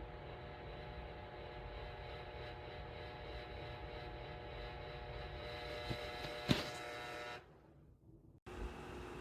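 Electric fan heater running with a steady motor hum and whir. About six and a half seconds in there is a click, and the hum winds down to near quiet, as when the heater is switched off. A cut near the end brings in another steady hum.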